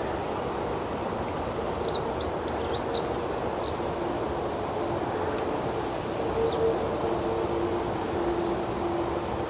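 Insects trilling in a steady, unbroken high-pitched chorus, with a bird chirping in two short flurries, one about two seconds in and one about six seconds in, over a constant low background hum.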